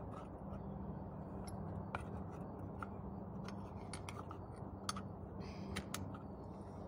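Small, sharp metallic clicks and taps, one or two a second, as a shopping-cart caster wheel and its metal bracket and pin are handled and fitted together by hand. A steady low hum runs underneath.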